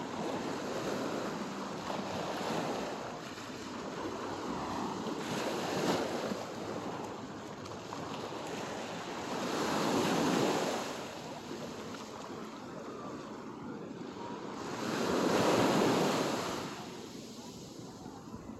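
Small sea waves breaking and washing up a sandy beach, the wash swelling and fading every few seconds, loudest about three-quarters of the way in.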